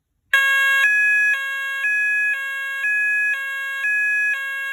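Fire alarm sounder bases powered from a battery, sounding a loud two-tone alarm that starts abruptly just after the opening and switches between a lower and a higher tone about every half second. The sounders are being bench-tested and are working.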